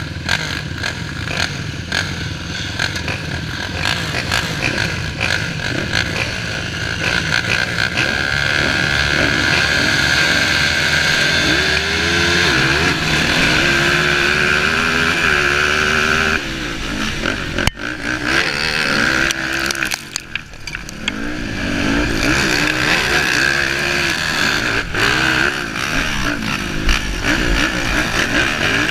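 Racing engine at high revs, its pitch rising and falling repeatedly as it accelerates and backs off, with brief sharp dips in level a little past the middle.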